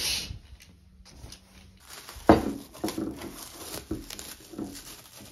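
Household handling sounds: a short swish at the start, then a sharp thump about two seconds in and a run of softer knocks and crinkles as a ceramic bowl wrapped in plastic film is handled on a desk.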